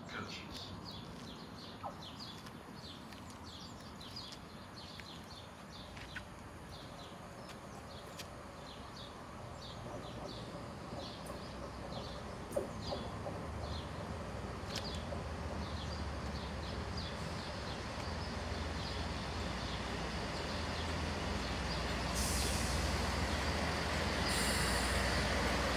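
GWR Turbo diesel multiple unit approaching and drawing into the platform, its engine rumble growing steadily louder. About 22 seconds in, a hiss of air brakes starts, pulsing near the end as the train comes to a stop. Birds chirp throughout.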